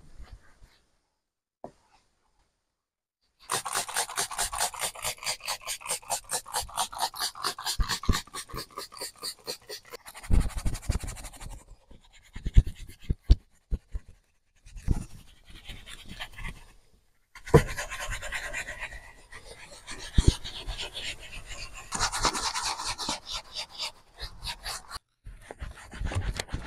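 Detailing brush scrubbing a leather car seat in quick back-and-forth rasping strokes, about five a second. The strokes start a few seconds in and come in bursts with pauses, broken by a few sharp knocks.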